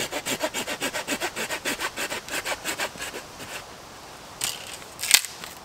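Small hand saw cutting through a dry deadfall stick in quick, even back-and-forth strokes, about seven a second, stopping after about three and a half seconds. A knock and then a sharp crack follow near the end, the crack the loudest sound of all.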